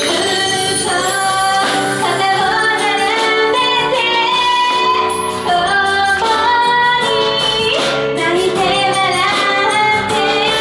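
A woman singing a pop song over a full band backing.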